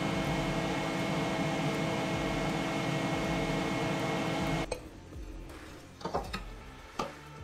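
Electronics cabinet cooling fans running with a steady hum that cuts off suddenly about four and a half seconds in, followed by a few light knocks of sheet metal being handled.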